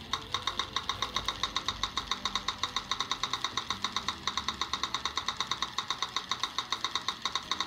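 3Shape TRIOS intraoral scanner's audio feedback during a scan: a rapid, even run of short high ticks, roughly nine a second. The ticking signals that the scanner is capturing 3D frames.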